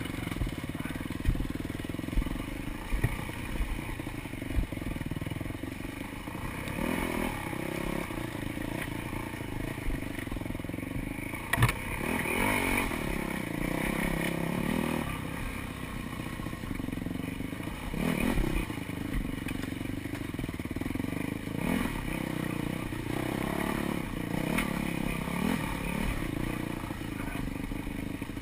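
Dirt bike engine running on a trail ride, its pitch rising and falling as the throttle is opened and closed, with sharp knocks and clatter as the bike goes over rough ground.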